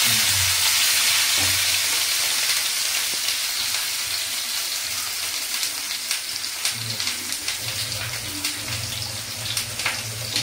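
Whole stuffed bitter gourds (karela) frying in hot oil in a pan: a steady sizzle that slowly dies down, with scattered pops and crackles in the second half.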